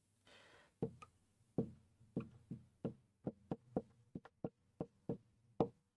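Dry-erase marker tapping and knocking on a whiteboard as it is written with: about fifteen short, sharp taps, irregularly spaced at roughly three a second, beginning about a second in.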